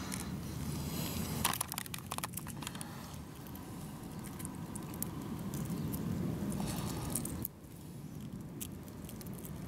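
Boiled quail eggshell crackling and clicking as it is cracked and peeled by hand, with a cluster of sharp clicks about one and a half seconds in. A steady low rumble runs underneath and drops a little near the end.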